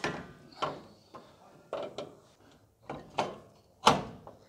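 Irregular metallic knocks and clunks as a coilover strut assembly is manoeuvred up into the front strut tower of a Nissan NP300 to get its top hat studs through, about seven in all, the loudest near the end.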